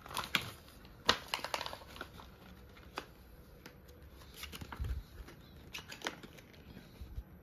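A small white cardboard box handled in the fingers: light clicks, taps and rustles of card being turned and gripped, the sharpest click about a second in, with a couple of soft low thumps later on.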